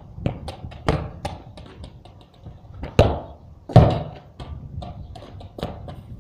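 Football kicked hard on a concrete yard, with a loud thud about three seconds in and a second, louder thud under a second later as the ball strikes something. Lighter knocks come before and after.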